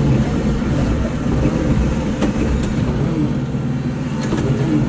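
Kubota L-series tractor's diesel engine running steadily under way, a continuous low drone with a few faint ticks over it.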